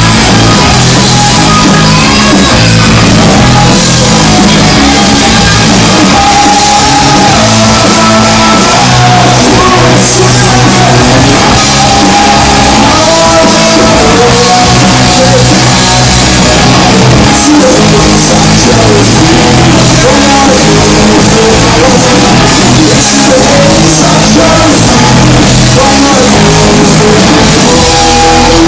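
Rock band playing loud, with sung and shouted vocals over electric guitar and drum kit.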